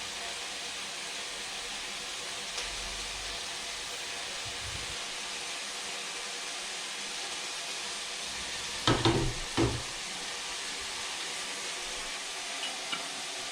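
Chicken and garlic sizzling steadily in a frying pan, with two brief louder sounds about nine seconds in.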